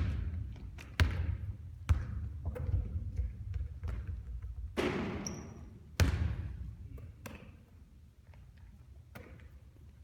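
A basketball bouncing hard on a court: three bounces in the first two seconds and another about six seconds in. A brief rushing noise comes just before the last bounce.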